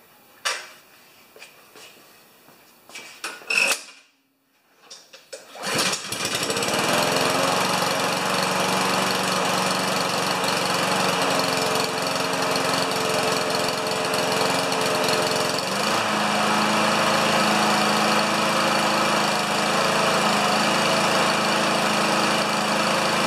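A few clicks and knocks, then about six seconds in the Honda engine on a Craftsman push mower starts and runs steadily, freshly back in running order after a carburettor clean; its tone shifts slightly about ten seconds after it starts.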